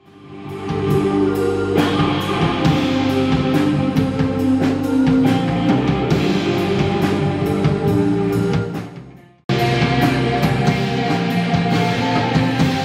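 Live rock band playing: electric guitar over a drum kit with a steady cymbal beat. The music swells in at the start, fades out about nine seconds in, and cuts back in sharply half a second later.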